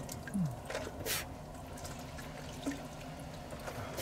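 Water trickling and dripping from the tap of a foot-pumped portable wash basin while hands are washed under it, with a few short splashes. A sharp click right at the start.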